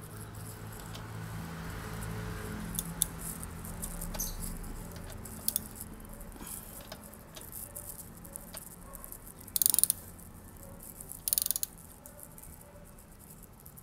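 Ratchet wrench clicking in two short rapid bursts, about nine and a half and eleven seconds in, as the bolts of a motorcycle radiator guard are tightened. Scattered clicks of the socket and tool being handled come in between.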